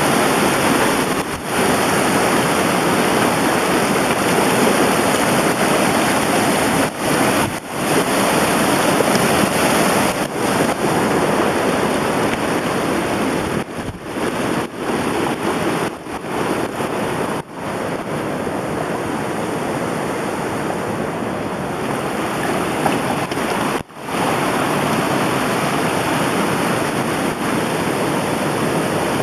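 Steady rushing noise of running water, broken off abruptly for a moment a dozen or so times.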